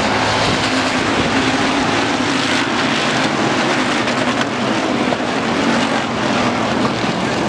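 A pack of hobby stock race cars racing around the oval: the engines of many cars blend into a loud, steady drone.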